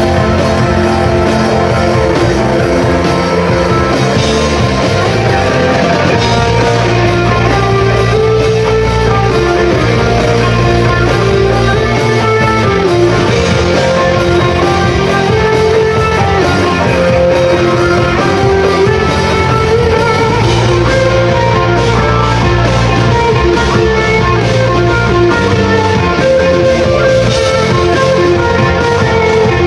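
Rock band playing loud music, with electric guitar to the fore over drums.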